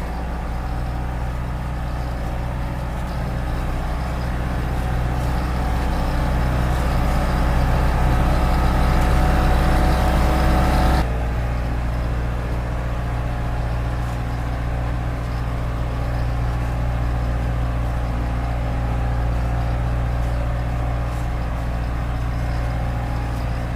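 Backhoe's diesel engine running steadily, swelling a little over the first ten seconds, then dropping back suddenly and running on evenly.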